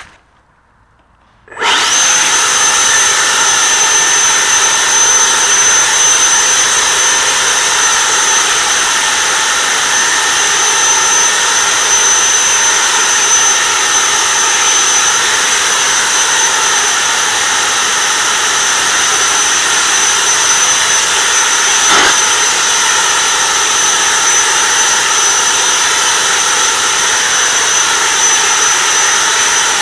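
Homemade leaf blower switching on about a second and a half in, then running steadily: a loud, even rush of air with a high-pitched whine.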